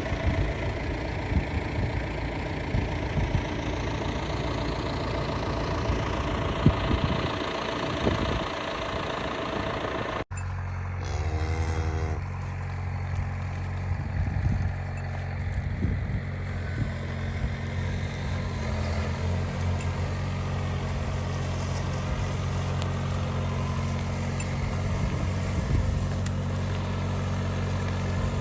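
John Deere 6110R tractor's diesel engine running. About ten seconds in, the sound cuts off abruptly and gives way to a steadier, lower engine hum.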